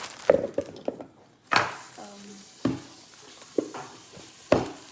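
Mini Oreo cookies tipped from the bag into a bowl, landing in a series of irregular sharp knocks and clatters, about seven in all.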